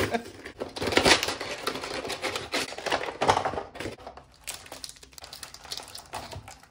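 Crinkling and rustling of a Pokémon TCG collection box's cardboard insert and clear plastic blister tray as the foil booster packs are pulled out. Loudest in the first few seconds, then fainter and sparser.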